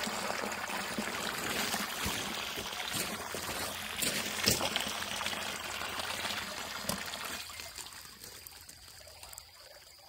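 Shallow stream water trickling and rippling over a grassy bank, with a few light knocks; the water sound fades away after about seven and a half seconds.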